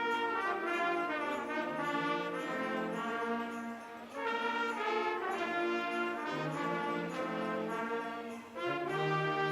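Instrumental music led by brass, playing held chords in phrases with short breaks about four and eight and a half seconds in.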